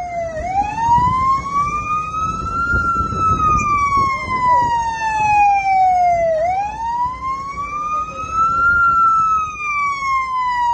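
Police car siren in a slow wail, its pitch rising and falling twice, each full sweep taking about six seconds. A low rumble of engine and street noise runs underneath.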